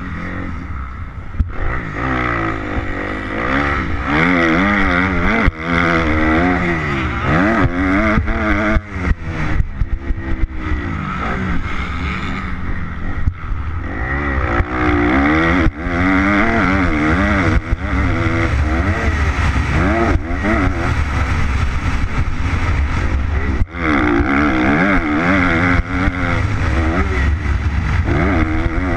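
Kawasaki KX250F four-stroke single-cylinder motocross engine, ridden hard: the revs climb and drop again and again as the throttle opens and closes through the gears, with a few brief cuts in the sound. Wind buffets the microphone throughout.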